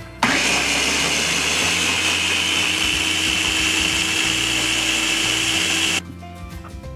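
Ninja blender running steadily for about six seconds, puréeing boiled cassava with broth into a thick cream. The motor starts just after the beginning and cuts off suddenly near the end.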